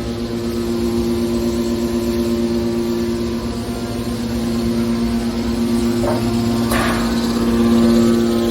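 Metal scrap baler's hydraulic power unit running with a steady hum, with a short sharp metallic noise about six and a half seconds in and the hum growing louder near the end.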